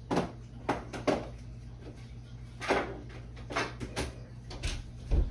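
Kitchen clatter: a string of sharp knocks and clicks, about eight in five seconds, as containers and a cupboard are handled while a seasoning jar is fetched. A steady low hum runs underneath.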